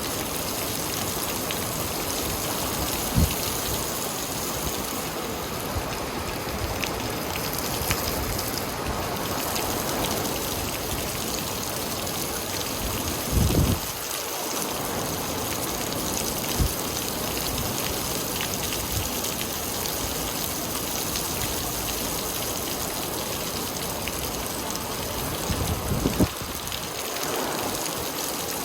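Steady rain falling, drops pattering on surfaces, with a few short dull thumps, the loudest about halfway through.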